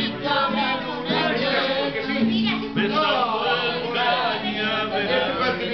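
A group of men singing together to a strummed acoustic guitar, a Spanish-language folk song sung along at the table.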